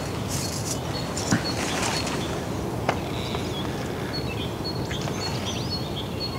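Small birds chirping with short rising calls from about three seconds in, over a steady outdoor background rush. Light rustling and two sharp knocks of camp cookware, about one and three seconds in.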